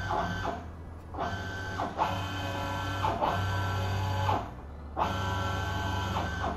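Closed-loop NEMA 23 stepper motors driving the X and Y axes of a CNC-converted mini mill together, whining in steady tones as the table is jogged. They run in about four spells that start and stop, with the pitch sliding up and down at each start and stop as the motors ramp.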